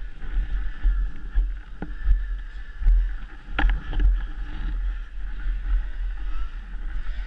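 Ski-Doo snowmobile being rolled over by hand in soft snow: shuffling, thumps and a few sharp knocks near the middle, over heavy wind and handling rumble on a helmet-mounted camera's microphone.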